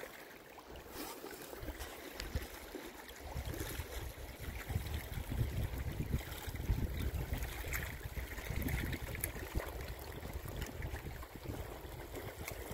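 Lake water trickling and lapping among shoreline rocks, with a gusty low rumble of wind on the microphone from about three seconds in.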